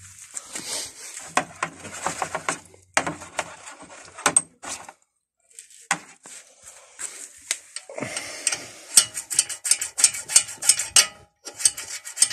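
Metal brake-caliper parts clinking and being handled, then from about nine seconds in a quick run of scraping strokes, several a second, as rust is rubbed off the caliper's guide parts.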